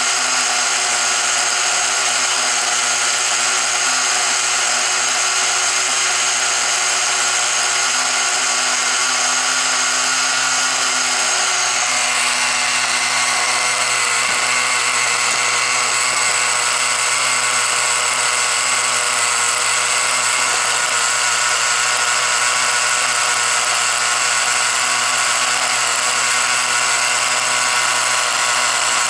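Small nitro glow engine of a Tamiya TGX 1/8 RC car running steadily on a stand, wheels off the ground, with a high buzzing whine. Its pitch shifts about twelve seconds in.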